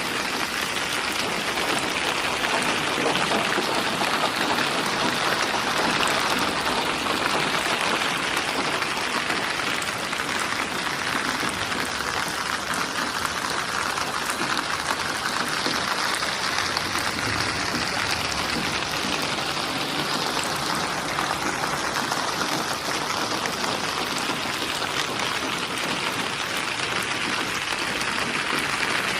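Steady rain falling, an even hiss of many drops hitting a surface.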